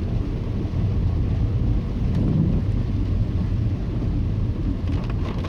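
Steady low rumble of an Audi A2 1.4 TDI being driven, engine and road noise heard from inside the cabin.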